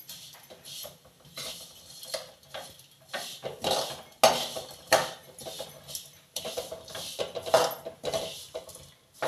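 A metal spoon scraping and clinking against a metal kadai in irregular strokes, stirring vermicelli as it is roasted in a little ghee.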